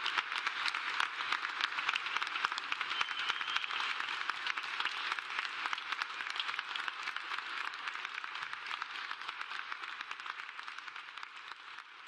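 Audience applauding, a dense steady clapping that dies away over the last few seconds.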